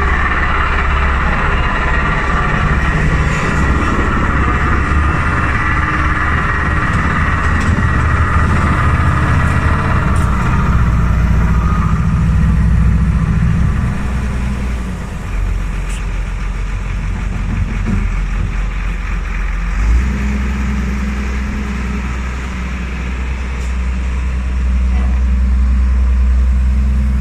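Diesel engine of a 22-tonne single-drum vibratory road roller running with a steady low hum. The engine note changes about two-thirds of the way through.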